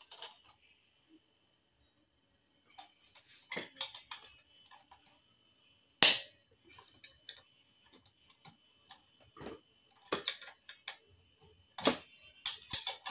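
Hand tools and metal parts being handled during work on a scooter's front end: scattered clicks and clinks, one sharp knock about six seconds in, and a busier run of clicks near the end.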